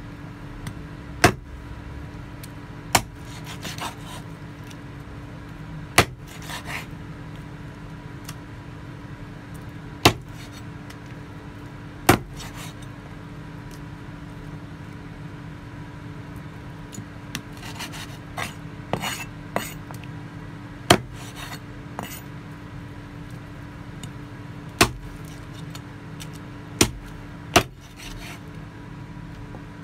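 Meat cleaver chopping on a wooden cutting board: about nine sharp, loud chops a second or several seconds apart, with softer scraping and rustling between them over a steady low hum.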